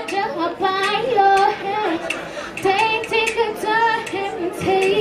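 A woman singing live into a microphone, in several short phrases of held notes that slide slightly in pitch.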